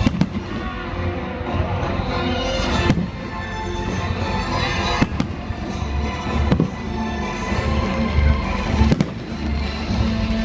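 Aerial fireworks bursting with several sharp bangs at irregular intervals over music played on a stadium sound system.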